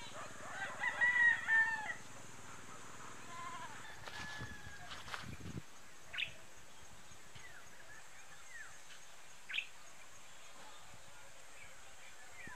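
A rooster crows once, lasting about a second and a half near the start. Two short chirps follow later, over a steady high-pitched hiss.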